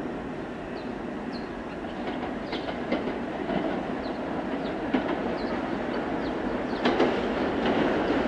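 Bombardier R62A subway train approaching along the track, its rumble growing steadily louder, with wheels clicking over rail joints and a few brief high squeaks.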